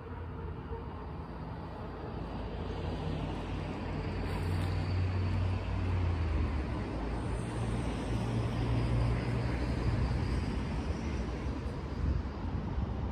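Outdoor road traffic with a low engine rumble that grows louder over the first several seconds and then holds steady.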